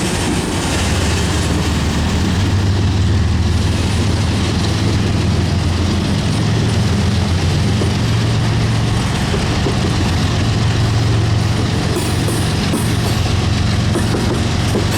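CSX freight train rolling past: a steady, loud rumble of wheels on rail with a low hum underneath.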